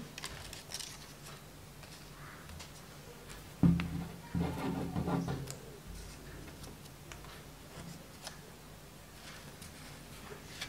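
Quiet craft handling: soft scattered clicks and paper rustles as a glue stick is worked and pink paper ears are pressed onto a paper mask. A short, louder low sound with a brief hum comes about three and a half seconds in.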